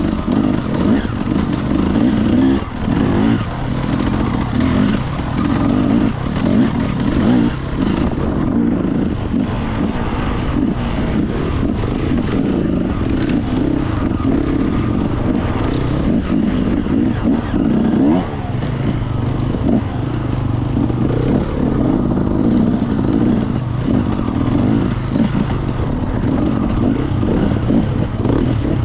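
Enduro motorcycle engine running as the bike is ridden, its note rising and falling with the throttle.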